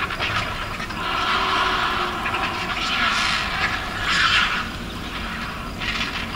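A crowd of Eurasian griffon vultures making rasping, hissing calls, swelling loudest about three and four seconds in.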